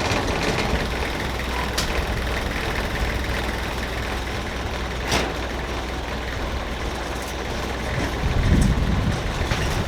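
A river ferry's engine running with a steady low hum. A sharp knock comes about five seconds in, and wind buffets the microphone near the end.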